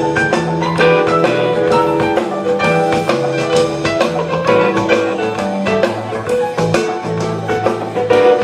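Live rock band playing an instrumental passage: a moving bass line under held chords and melody notes, with a drum kit keeping time.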